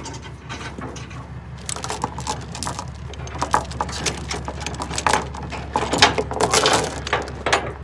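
Steel load-securement chain and a ratchet binder clinking and rattling as they are handled, many quick metallic clinks starting about two seconds in and growing busier toward the end.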